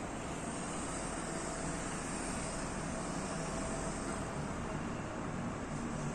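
Steady noise of distant road traffic on a highway.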